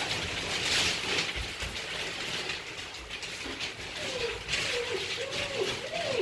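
Dobermann puppies scrambling over wood-pellet bedding, the pellets rattling and crunching under their paws. From about four seconds in, a wavering whine rises and falls over it several times.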